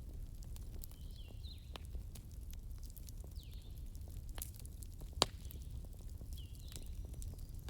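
Burning wood crackling, with scattered small pops over a low steady rumble and one sharper, louder pop about five seconds in.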